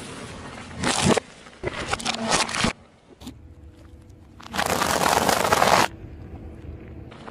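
Car tyre rolling over and crushing objects on asphalt. First come a couple of short crunches as a wrapped bar is flattened. Then a louder, dense crackling crunch lasting over a second as the tyre runs over a pile of small flat brown pieces.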